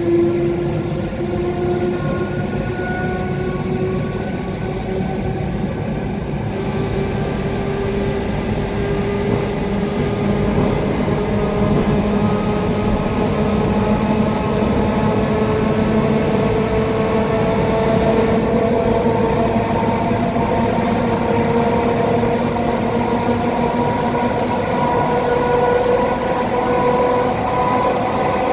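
ET2M electric train heard from inside the carriage, running with a steady rumble from the wheels and track. Over it the traction motors whine with several tones that rise slowly and evenly in pitch as the train gathers speed.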